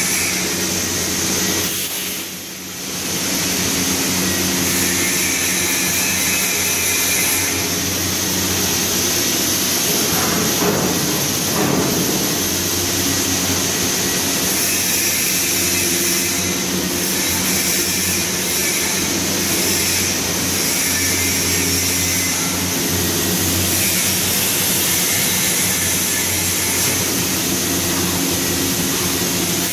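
Steady machine hum and hiss in a pipe-welding workshop during stainless-steel welding practice, dipping briefly about two seconds in.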